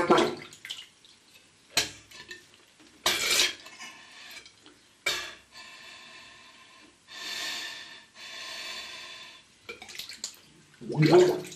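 Underwater bubbling and splashing in a bathtub as a man exhales with his face below the surface, in several short loud bursts. Between them come a few seconds of steady hissing breaths with a faint hum in them, blown through a garden hose held to his mouth.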